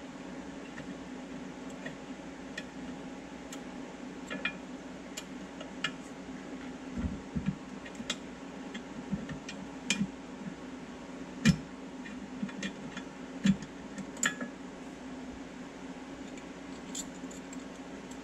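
Scattered light metallic clicks and clinks of a hand tool and bolts being worked into a steel front differential skid plate from underneath a Jeep, with two sharper knocks about two-thirds of the way through, over a steady low hum.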